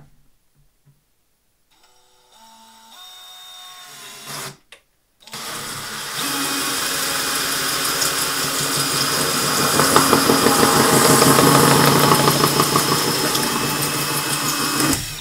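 Cordless drill briefly speeds up in steps and stops, then after a short pause runs for about ten seconds, driving a 3-inch hole saw through a plastic storage-tote lid. The saw is turning in reverse so the teeth don't grab and crack the plastic. The cutting sound is steady with a fast, even chatter and stops suddenly near the end.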